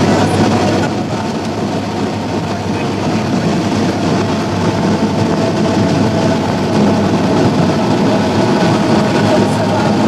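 Piston engine and propeller of a single-engine light aircraft running, heard from inside the cabin as the plane rolls along a dirt runway: a loud, steady drone that grows a little louder from about halfway through.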